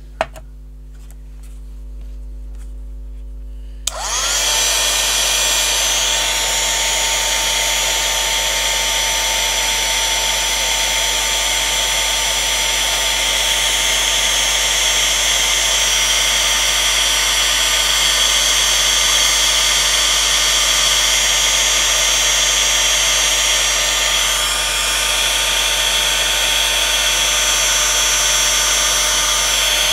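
Embossing heat tool switching on with a click about four seconds in, then running steadily with rushing air and a high whine as it melts embossing powder. Before it starts there is a quieter hum.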